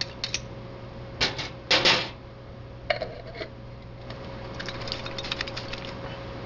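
A spoon knocking and clinking against a small glass bowl and a glass jar, a few sharp knocks with the loudest about two seconds in and a short ringing clink near the middle, followed by a run of light ticking clicks.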